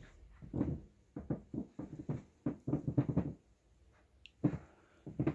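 Soft irregular thumps and knocks, several a second for a couple of seconds, then two louder ones near the end: handling and movement noise.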